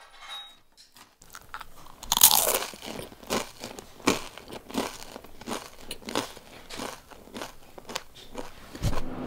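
A person chewing crunchy food close to the microphone: a loud crunching bite about two seconds in, then steady crunching chews, about two to three a second.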